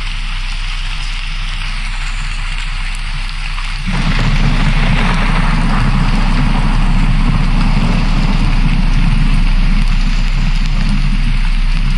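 Steady rushing noise like heavy rain, with a deeper rumble joining about four seconds in and holding.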